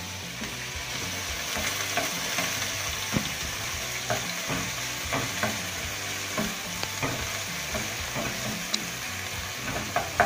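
Chopped onion sizzling in hot oil in a stainless steel frying pan as it is softened, while a wooden spoon stirs it with irregular light scrapes and taps against the pan.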